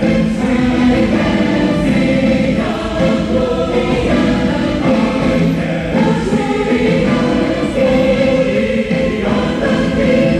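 Music: a choir singing a gospel-style Christian song, continuous and steady in loudness.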